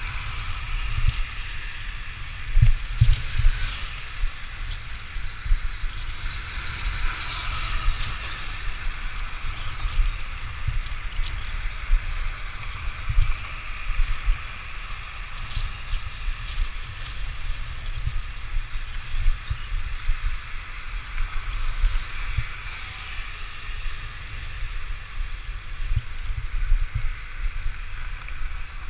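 Wind buffeting a moving GoPro's microphone in a low, gusty rumble, over a hiss of road and tyre noise that swells as cars pass a few times.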